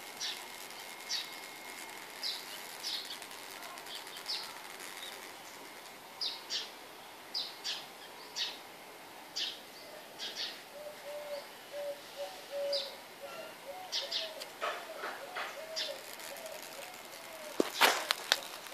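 Small birds chirping: short high calls repeated every second or so. From about ten seconds in, a low, repeated cooing call joins, and near the end there is a loud sharp knock.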